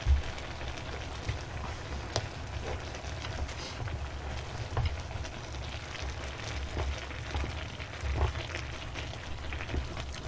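Pot of budae jjigae (Korean army stew) simmering, a steady crackling bubble and pop, with small clicks of chopsticks working in the pot.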